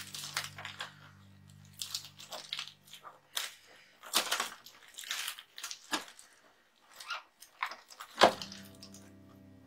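Plastic wrapping and packing tape being peeled and crinkled off a printer's ink tank unit: an uneven run of crackles and rustles, with one sharp click a little after eight seconds in as the loudest sound.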